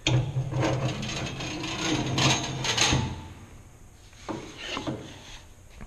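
Handling noise at the bandsaw: hands rubbing and knocking against its case and a piece of wood. The first three seconds are loudest, with a couple of sharp knocks between two and three seconds in, then a few lighter knocks.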